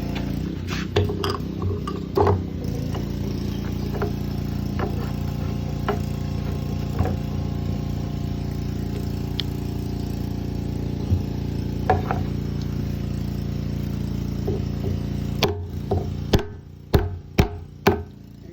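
Light clicks and knocks of a Scepter jerry can cap and its flange being handled and fitted, over a steady low hum. Near the end the hum stops and four sharp snaps follow as the flange is pressed home in the cap.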